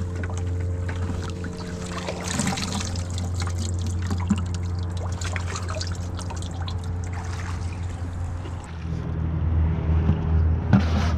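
Shallow seawater splashing and trickling as rocks are lifted out of the water and held over a plastic bucket, water running off them in many small splashes and drips, over a steady low rumble.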